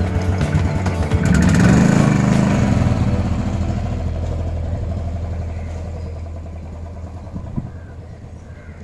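Motorcycle engine running, swelling about a second in and then gradually fading out.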